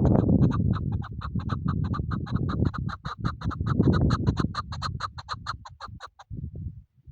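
Chukar partridge calling: a rapid, even series of short clucking notes, about six a second, that stops about six seconds in. A loud low rumbling noise runs underneath.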